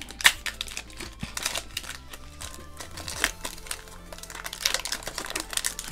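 Foil booster-pack wrapper crinkling and crackling as it is torn open by hand, with quiet background music underneath.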